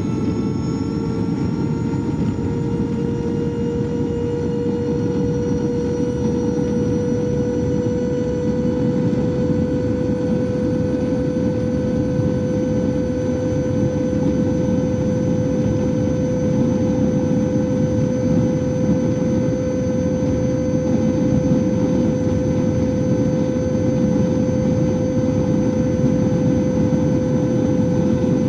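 Super Soco TC Max electric motorcycle motor giving a steady high whine that rises slightly in pitch over the first few seconds and then holds. A steady rushing noise runs beneath it.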